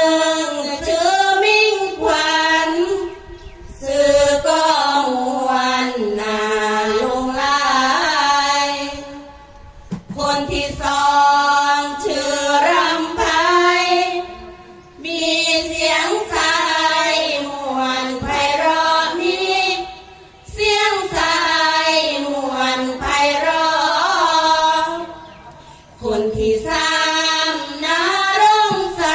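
A group of women chanting sarabhanya, Thai Buddhist devotional verse, in unison. It goes in long melodic phrases with short breaks for breath about every five or six seconds.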